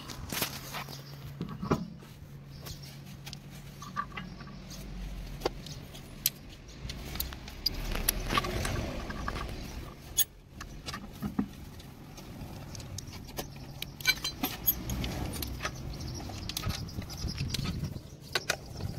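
Scattered metallic clinks and knocks of wheel bolts and tools being handled as a car wheel is fitted back onto its hub.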